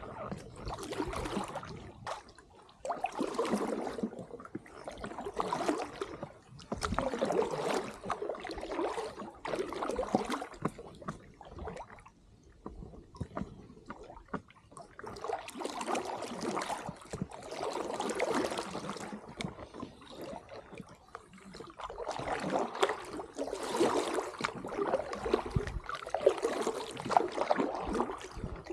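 Kayak paddle strokes: the blades dip and pull through calm water in a steady rhythm of about one stroke every two seconds, each with a splash and the trickle of water running off the blade.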